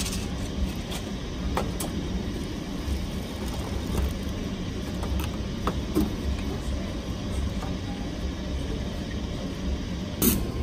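Paper instant-noodle cups and their foil lids being handled and peeled back, giving scattered light clicks and rustles and a sharper knock near the end, over a steady low hum.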